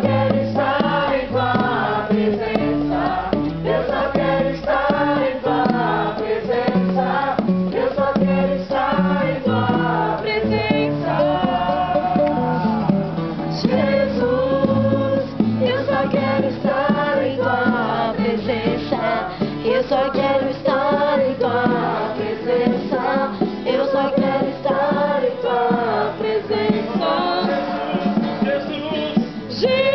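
A group of voices singing a worship song together, accompanied by a strummed acoustic guitar.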